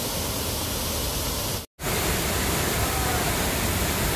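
Steady rush of falling water from a waterfall, an even hiss and rumble at constant level, cut by a brief moment of silence about a second and a half in.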